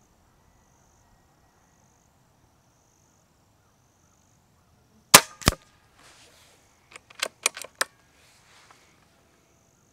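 A Hatsan Flash Pup .22 PCP air rifle fires one shot, a single sharp crack about five seconds in. A fainter second crack follows about a third of a second later. About two seconds after the shot come four or five quick metallic clicks from the rifle's action as it is worked for the next shot.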